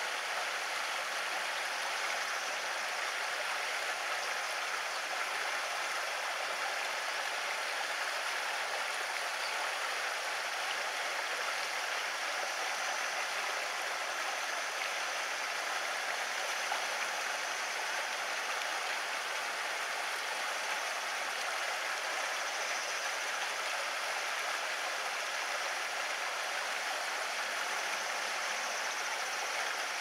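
Steady, even rush of flowing water with no breaks.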